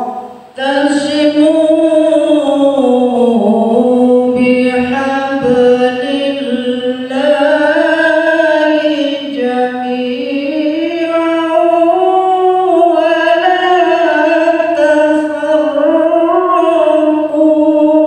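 A man chanting a melodic Quran recitation into a microphone. After a short breath about half a second in, it runs as one long phrase of held, ornamented notes that slowly rise and fall in pitch.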